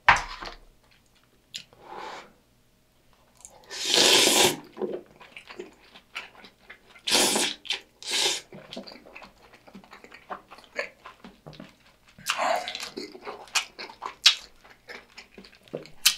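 Close-miked eating of a mouthful of beef rice bowl with tonkatsu and udon noodles: steady small wet chewing clicks and smacks, broken by several loud breathy bursts about 4 s, 7 s, 8 s and 12 s in.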